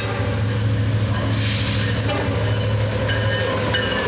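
Freight train led by BNSF diesel locomotives approaching and passing at speed: a steady low engine drone under rushing wheel and rail noise. A few thin high squeals come in over the second half.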